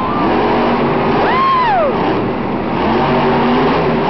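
Monster truck's supercharged V8 running and revving over a dense crowd din, with a shrill rising-and-falling whoop about a second and a half in.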